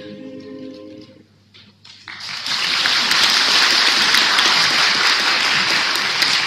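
The last held chord of an a cappella vocal group dies away about a second in; after a short pause, audience applause starts about two seconds in and stays loud and steady.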